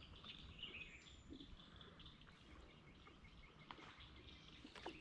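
Near silence: quiet outdoor ambience with faint, scattered bird chirps.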